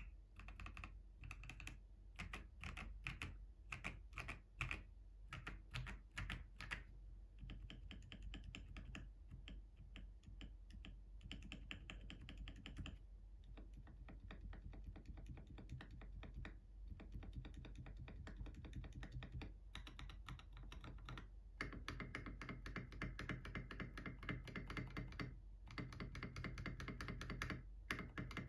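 Typing on an FL eSports Q75 mechanical keyboard with Kailh Clione Limacina switches. Single keystrokes come apart at first, then give way to fast, continuous typing that grows fuller toward the end.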